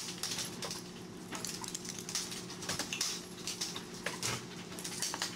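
A small dog squeezing past a wire baby gate on a tile floor: irregular light clicks and rattles of its claws and the gate, over a steady low hum.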